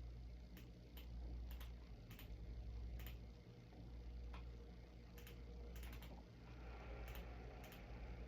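Sparse, irregular clicks at a computer, about a dozen single key or button presses, over a low steady hum.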